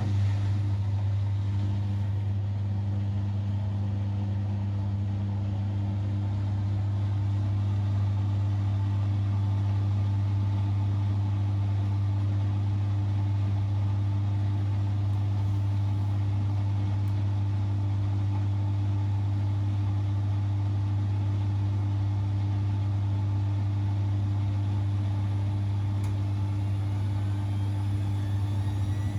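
Siemens Extraklasse XLS 140 A front-loading washing machine spinning at a steady high speed, a loud, even, low hum with no change in pitch.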